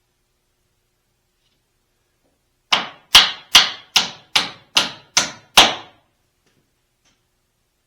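Hammer driving a fastener into wood: eight quick, sharp blows, about two and a half a second, in a single run.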